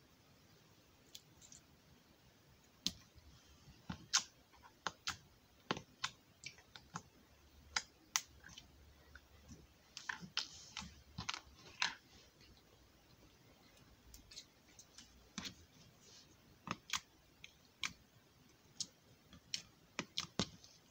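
Slime being squished and stretched by hand, making irregular sharp clicks and pops, sometimes several in quick succession.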